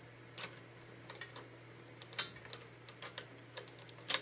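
Irregular light clicks and taps of ceiling fan hardware being handled, screws and metal parts knocking together, about a dozen in all with the loudest near the end. A faint steady low hum runs underneath.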